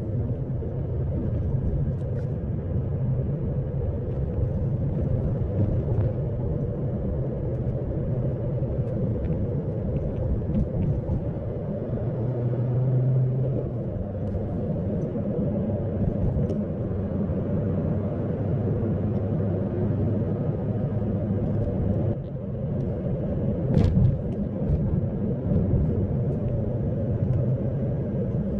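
Car cabin noise while driving: a steady low rumble of engine and road, with one sharp knock late on.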